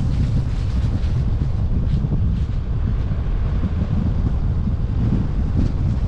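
Wind buffeting the microphone of a camera on a moving car: a loud, steady low rumble mixed with road noise, with a few faint ticks.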